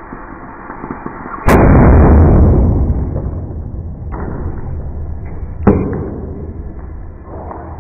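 Plastic vitamin bottle pressurised by an air compressor bursting with a single sharp bang about one and a half seconds in, followed by a loud noisy rush that fades away over about two seconds. Two shorter sharp knocks come later.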